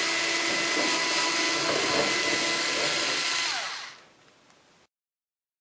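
Power driver spinning out the screw that holds the white wire to the dryer cabinet: a steady motor whir that winds down in pitch and stops about three and a half seconds in.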